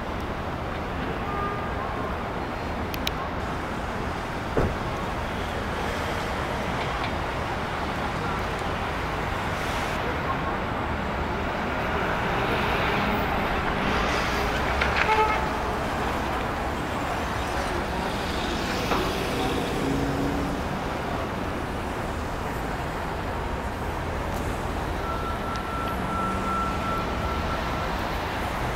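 City street traffic: a steady hum of cars and engines passing through an intersection, swelling for a few seconds midway. Near the end a car horn sounds as one long steady tone.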